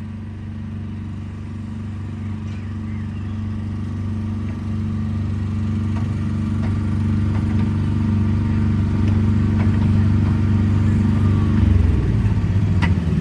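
Autopia ride car running along the track with a steady low hum that grows gradually louder. Near the end the hum turns rougher.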